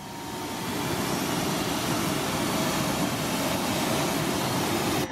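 Pressure washer spraying a steady jet of water onto a mud-caked truck wheel and tyre.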